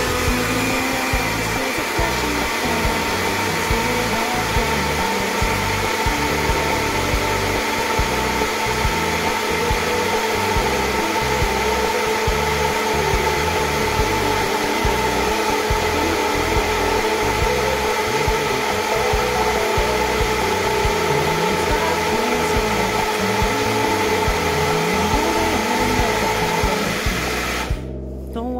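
Russell Hobbs personal blender running steadily with a motor whine for nearly half a minute, cutting off shortly before the end.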